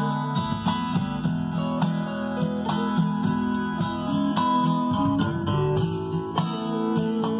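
Band music with strummed acoustic guitar over sustained notes and a steady, quick beat.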